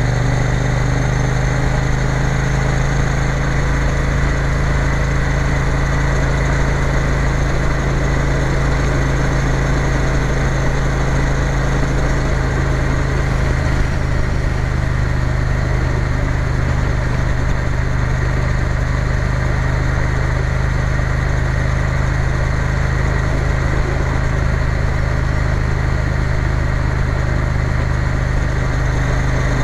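Triumph Bonneville T120's parallel-twin engine running at a steady speed as the motorcycle cruises along.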